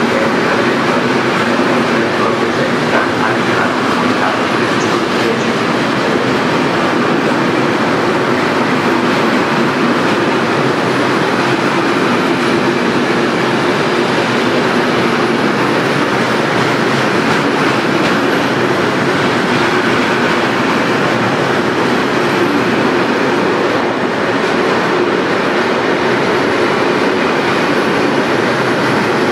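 Container freight train passing through close by: the steady, loud noise of its wagons' wheels running over the rails, holding at an even level throughout.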